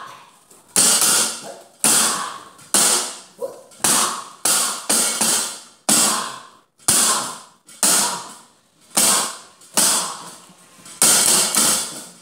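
A dozen or so sharp, bright struck-metal percussion hits at an uneven pace of about one to two a second, each ringing out briefly before the next.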